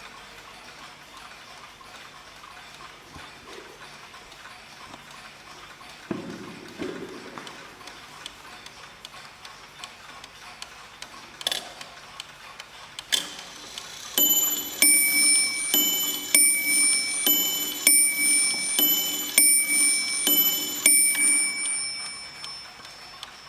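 Mechanical mantel clock ticking, then after a couple of sharp clicks striking the hour in bim-bam style: a run of ringing strokes alternating between two high notes, a little under two strokes a second, the last ones fading.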